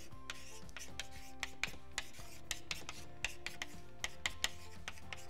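Marker pen writing on a whiteboard: an irregular run of short scratchy strokes and taps, with soft background music under it.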